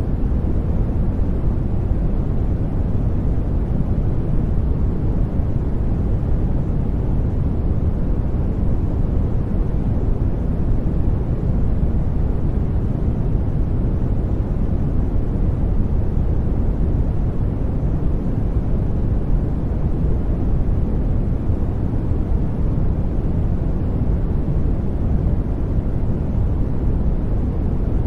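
Steady, unchanging generated noise, sold as white noise but heavy in the low end: a deep, even rumble with little hiss on top.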